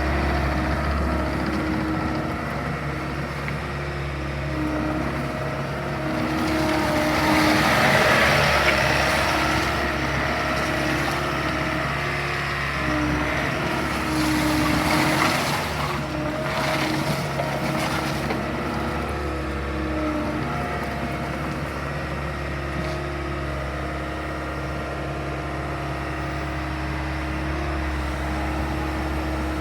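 Bobcat T76 compact track loader's diesel engine running steadily, revving up about a quarter of the way in and again around the middle, then settling back to a steady run.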